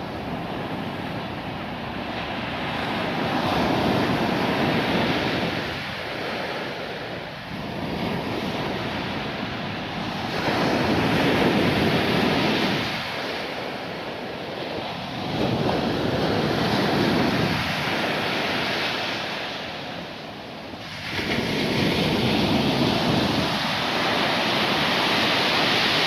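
Storm surf breaking on a sandy beach, the roar of the waves swelling and easing every few seconds as each set comes in. Wind buffets the microphone throughout.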